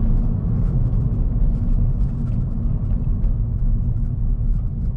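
Steady low rumble inside the cabin of a Subaru BRZ on the move: its flat-four engine running through a Borla stainless axle-back exhaust, mixed with tyre and road noise.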